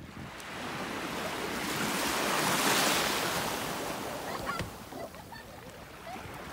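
Small waves washing on the shore in a gentle, even rush that swells to its loudest about two to three seconds in, then eases off.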